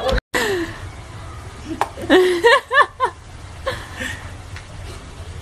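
Human voices chuckling: a cluster of short rising-and-falling laughing notes about two to three seconds in, with a few faint clicks around them.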